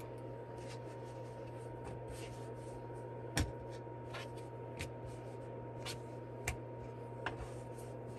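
Hands flipping and sliding knitted yarn squares over on a tabletop: soft rustling of the fabric with a few light clicks, the sharpest about three and a half seconds in, over a steady low background hum.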